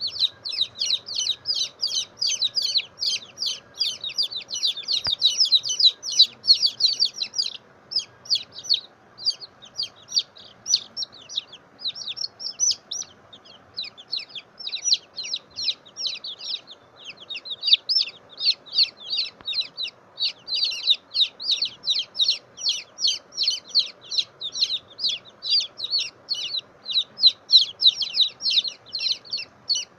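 Baby chicks peeping: a steady stream of short, high-pitched cheeps, several a second, that thins out for a few seconds about a third of the way in.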